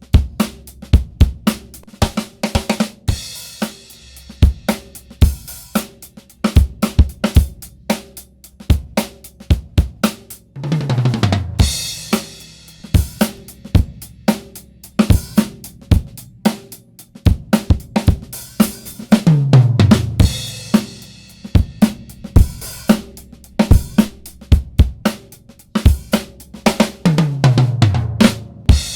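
Recorded acoustic drum kit groove of kick, snare and hi-hat, played through a MOTHER VIVID 3-band 500-series EQ. About every eight seconds a tom fill steps down in pitch, and the first fill lands on a crash cymbal.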